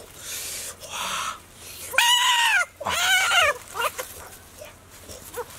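A man's wordless vocal exclamations: breathy blowing sounds, then two loud 'ooh' calls about two and three seconds in, each rising then falling in pitch, with a few short calls after.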